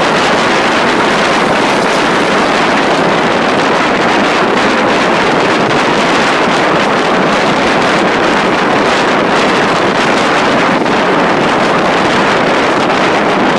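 Steady, loud wind rush on the microphone from the open window of a moving passenger carriage, mixed with the train's running noise; no distinct engine note stands out.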